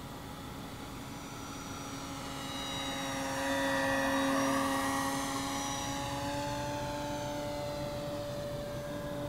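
Electric motor and propeller of a 55-inch OMP Super Decathlon RC model plane in flight. It is a steady propeller drone that grows louder and shifts slightly in pitch as the plane passes close by about four seconds in, then eases off.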